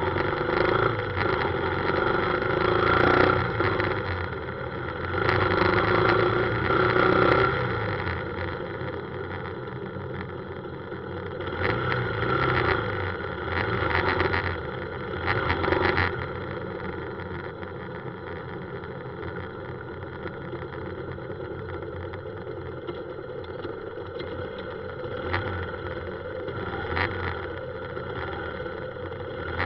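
Riding a motorbike through city traffic: the bike's small engine running under road and traffic noise. It is louder in two surges during the first half, then steadier and quieter as the traffic slows to a crawl.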